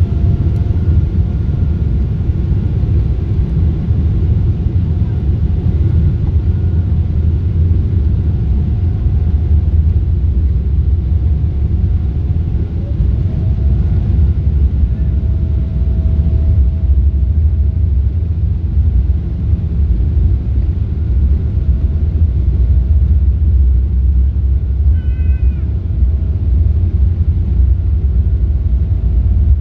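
Cabin noise of a Boeing 777-300 taxiing: a steady low rumble from the engines and airframe with a faint steady tone over it. A short high chirp near the end.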